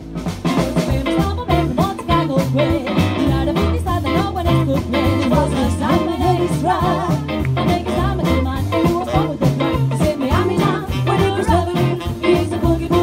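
Live swing music: three women singing together at microphones, backed by a band on upright double bass and drum kit, with a steady beat.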